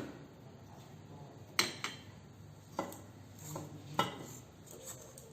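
A spoon clinking against a bowl or dish while masala is mixed. There are several short clinks, the loudest three coming about a second apart from around 1.6 s in.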